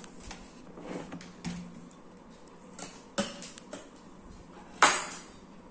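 Scattered light clicks and knocks of a kitchen utensil against a steel bowl and a foil-covered cake board as chocolate cream is scooped onto a sponge layer. The loudest is a sharp knock about five seconds in.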